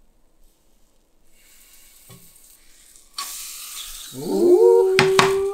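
Batter sizzling in a hot fish-shaped bungeoppang pan, getting louder about three seconds in, with two sharp metal clacks from the pan near the end. Over the sizzle, a drawn-out voice rises and then holds one note.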